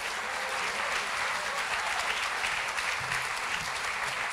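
Audience applauding: steady, even clapping from a large crowd.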